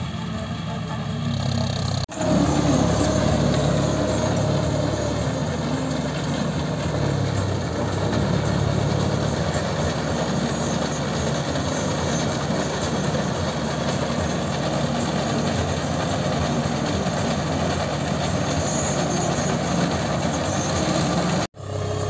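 Four-wheel-drive John Deere tractor's diesel engine running steadily under load while it pulls a straw baler through a wet paddy field. The sound cuts out sharply and briefly twice, about two seconds in and near the end.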